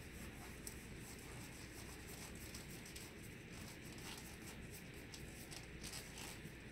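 Faint rustling and small crackles of a sterile glove being pulled on and worked down over the fingers, over a low steady room hum.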